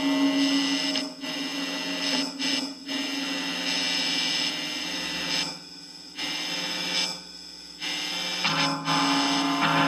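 Sustained droning tones, several pitches held together, that drop away briefly a few times before returning.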